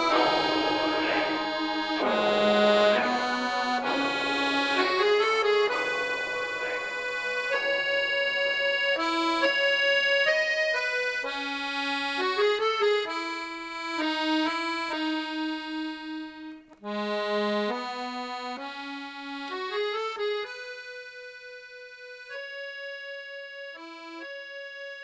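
Background music: a melody of held notes, thinning out and getting quieter over the last few seconds.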